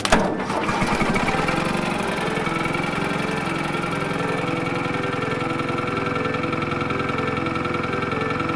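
Vintage tractor engine running steadily at idle, with an even, fast firing beat. There is one sharp loud bang right at the start.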